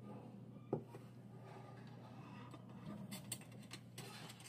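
A few faint clinks of a steel spoon against a small glass bowl as flour is mixed with water into a batter, over a steady low hum.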